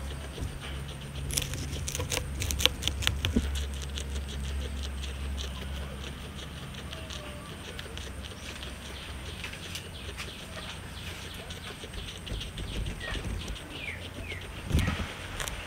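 Guinea pig chewing para grass: rapid, crisp crunching clicks as the blades are bitten and ground. The clicks are densest in the first few seconds and sparser later, over a steady low hum.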